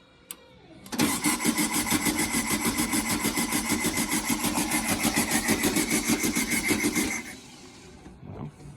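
Starter cranking a Volkswagen Beetle's air-cooled flat-four engine over in rapid, even pulses for about six seconds without it catching, then stopping suddenly. The fuel bowl is still filling.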